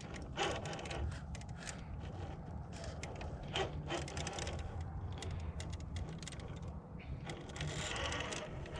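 Brushed electric motor and geared drivetrain of a Traxxas TRX-4 Sport RC crawler whirring at crawling speed as it climbs rock, with scattered clicks and knocks of the tires and chassis on stone.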